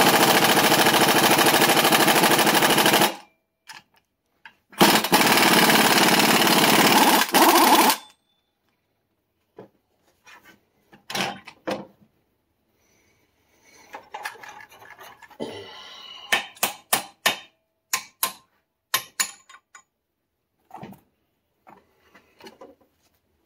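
Impact wrench hammering as it drives the forcing screw of a Snap-on ball joint press on a Dana 60 steering knuckle, pushing a ball joint. It runs for about three seconds, stops, then runs again for about three more. After that come scattered sharp metal clinks and knocks as the press adapters and cups are handled and reset.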